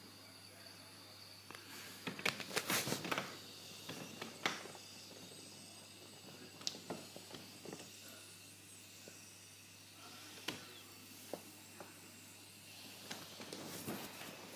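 Carette 776 live-steam toy locomotive running on its track: a steady hiss of steam with scattered light clicks, and several louder bursts of hissing, the strongest about two to three seconds in.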